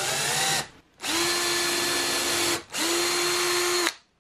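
DeWalt cordless drill drilling a pilot hole into plywood, its motor whining in three runs: the first speeds up, the other two hold a steady pitch.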